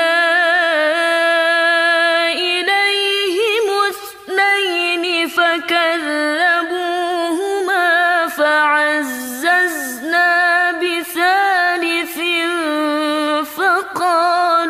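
A woman's voice chanting Quran recitation (murottal) in a slow, melodic style. She holds long notes with ornamented turns and pauses briefly for breath now and then.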